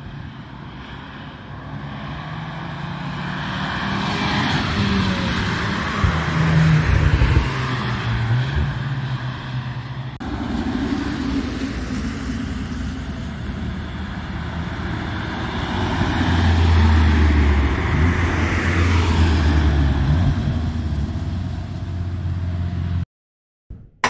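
VW Golf R test cars' turbocharged four-cylinder engines under power: one car accelerating past and peaking about six to seven seconds in, then after a cut two cars driving up toward the microphone, loudest around sixteen to nineteen seconds in. The engine sound stops abruptly near the end, followed by a short logo sound.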